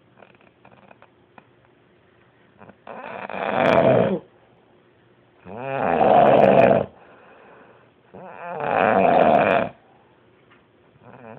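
Loud snoring: three long snores of about a second and a half each, every two and a half to three seconds, each swelling in loudness before cutting off.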